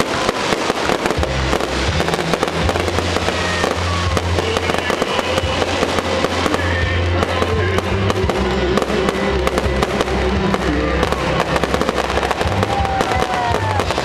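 Fireworks display: a dense, continuous crackle of many rapid small pops and reports, with music and its steady bass notes playing underneath for most of the stretch.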